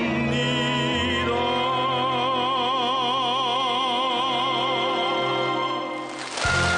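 Song in an operatic style: a singer holds one long note with wide vibrato over orchestral backing. Near the end the music fades out and a hissing noise with new tones cuts in.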